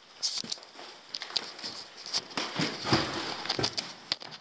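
Irregular footsteps and crunching on a debris-strewn floor, a scatter of uneven clicks and knocks over a steady high hiss.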